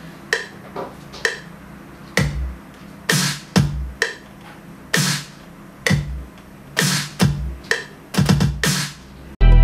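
Electronic beat: sparse drum-machine hits, sharp snare-like cracks and deep kick thumps, spaced out over a faint steady low tone. Just before the end a much louder, full electronic dubstep track cuts in suddenly.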